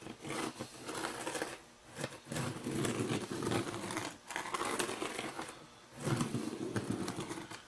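A fingertip dragged along the plastic ties of PECO code 83 flex track through loose crushed-granite ballast, making a gritty, rasping buzz in several strokes with short pauses between them. This sweeps the ballast off the tie tops and lets it flow over the roadbed edge onto the glue.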